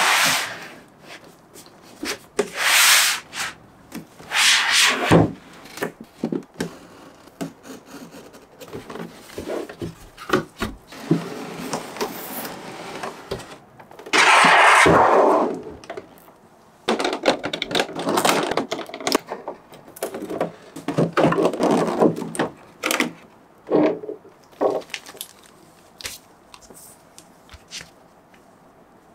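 Cardboard toy box and its clear plastic inner tray being handled and opened: a series of rubbing and scraping strokes, the longest and loudest about halfway through, then shorter rustles as the plastic tray and bag are handled.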